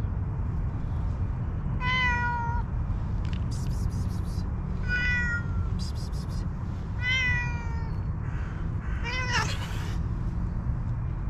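Kitten meowing four times, two to three seconds apart, each call falling in pitch; the last call is the loudest and rises then falls.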